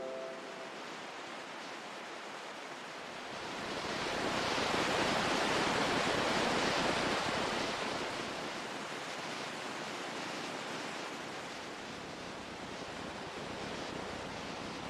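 Ocean surf: a steady rush of water that swells into a louder wash about four seconds in and eases off again after about eight seconds.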